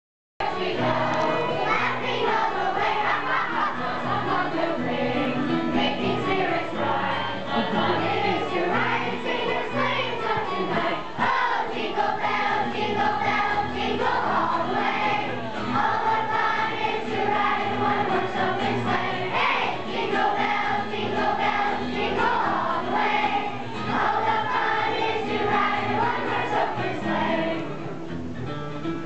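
A large children's choir singing a song together with musical accompaniment.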